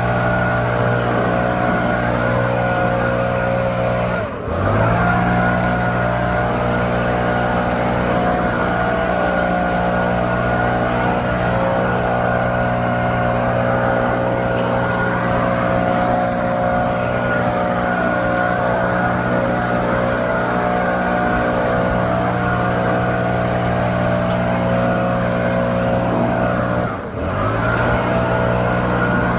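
Stihl BR700 backpack blower's two-stroke engine running at full throttle. The throttle is briefly eased off and opened again about four seconds in and once more near the end, the pitch dropping and climbing back each time.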